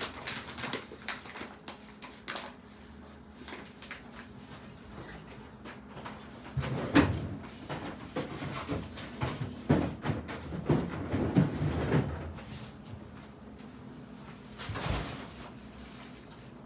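Handling noises: a brown paper bag crinkling as it is opened, then scattered rustles and knocks, louder in the middle, with one sharp thump near the end.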